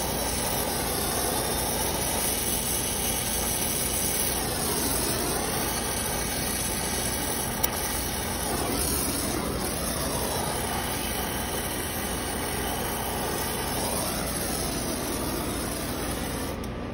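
Oxy-acetylene torch flame hissing steadily while a copper refrigerant line is brazed onto a new AC compressor's stub; the hiss drops away near the end as the torch is shut off.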